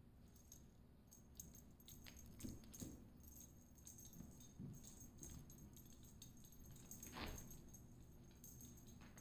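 Near silence with faint, scattered light rattles and rustles from kittens playing with toys on a rug, and one brief soft brushing sound about seven seconds in.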